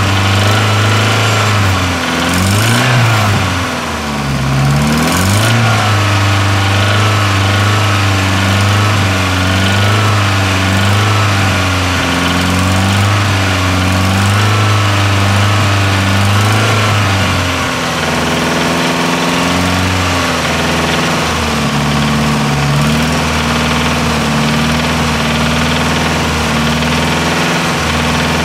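Nissan CA18DET 1.8-litre turbo four-cylinder engine running, revved up and down a couple of times early on, then idling steadily, settling to a slightly lower idle near two-thirds of the way through. It is run to show a knock that the owner suspects comes from worn big-end or main bearings, possibly needing a crank grind.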